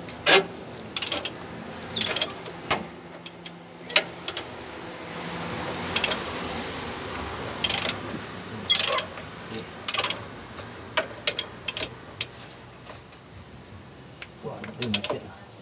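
Ratchet wrench tightening the rear leaf-spring U-bolt nuts in short bursts of clicking, with scattered metal clinks of the socket on the nut. The nuts are being drawn up a few turns at a time so the U-bolt threads stand out evenly.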